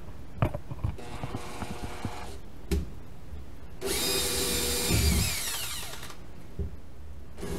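Cordless drill driving a self-tapping screw into a metal bracket. A couple of sharp clicks come first, then the motor whines for about two seconds, falling in pitch as it slows to a stop.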